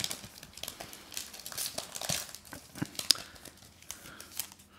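Panini Select soccer trading cards being handled and laid down one by one on a hard tabletop: scattered light clicks and taps of card stock, with some crinkling from the pack wrapper. One sharper click comes about three seconds in.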